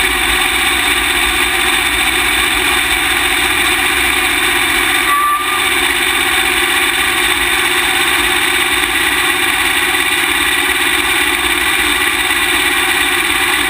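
Open-wheel dirt-track race car's engine running steadily at low revs, heard close up from on board, with a brief break about five seconds in.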